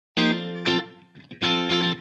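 Intro jingle music: distorted electric guitar chords, struck a few times, starting just after the beginning.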